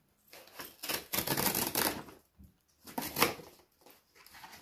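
Cardboard packaging being torn open by hand: a stretch of tearing and rustling about a second in, then a shorter burst about three seconds in.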